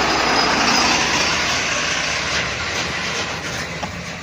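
Truck rumbling and rattling loudly, slowly fading over a few seconds.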